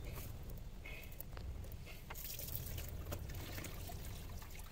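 Faint clicks and rustling as a rubber coolant hose is worked off the plastic thermostat housing of a BMW N20 four-cylinder engine, with a light trickle of coolant.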